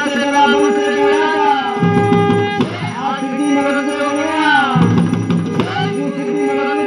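Garhwali jagar, a devotional invocation to the deity Bhairav: a man sings wavering, drawn-out lines that repeat about every two and a half seconds, over steady hand-percussion accompaniment.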